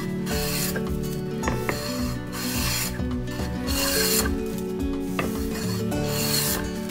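Japanese wooden hand plane (kanna) shaving a pine stair tread in light finishing passes, a rasping hiss with each stroke, about one stroke a second.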